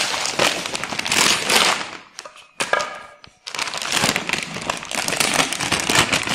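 Plastic packaging of a stainless-steel shower hose crinkling as it is handled, pausing briefly about two seconds in.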